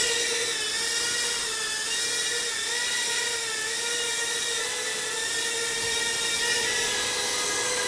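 Eachine E013 micro quadcopter in flight, its four tiny brushed motors and props making a steady high whine whose pitch wavers slightly as the throttle changes.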